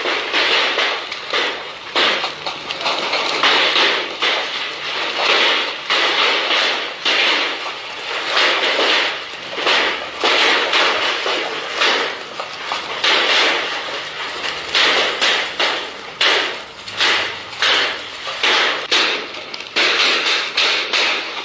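Hailstorm: a dense clatter of countless hailstones striking hard surfaces, swelling and easing in loudness every second or two.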